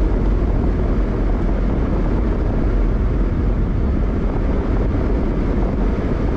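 Steady road noise inside a moving car's cabin: tyres on asphalt and a low rumble from the car at cruising speed.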